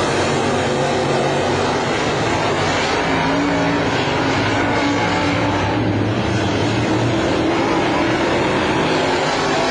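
A field of dirt late model race cars running laps, their V8 engines loud and steady, with several engine notes overlapping and rising and falling as the cars go round.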